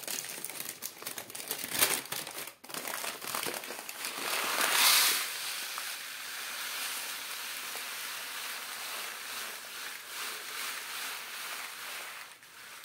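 Kraft paper bag crinkling as it is handled, then wheat grain poured from it into a plastic tray on a kitchen scale. A louder rush comes about five seconds in, and after it a steady hiss of pouring grain that lasts until near the end.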